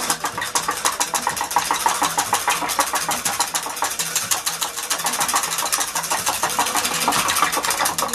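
Sauce being mixed fast in a bowl: a utensil clicking rapidly against the bowl in a steady rhythm, about ten strokes a second.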